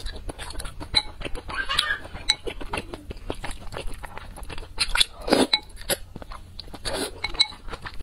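Close-up eating sounds from a bowl of noodles: wet chewing and slurping, with many small clicks and clinks of chopsticks against the bowl, and one louder slurp about five seconds in.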